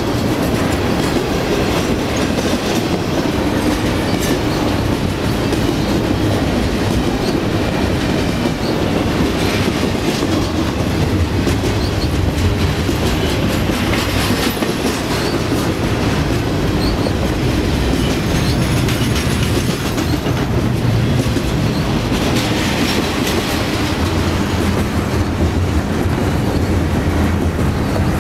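BNSF double-stack container train's well cars rolling past close by: the steel wheels on the rails make a loud, steady noise that stays even throughout.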